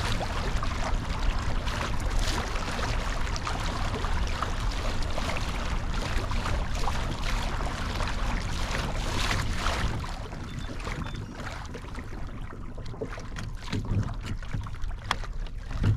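Water rushing and splashing against a kayak hull as the kayak moves, with wind rumbling on the microphone. The water noise eases off about ten seconds in, and a few small knocks follow near the end.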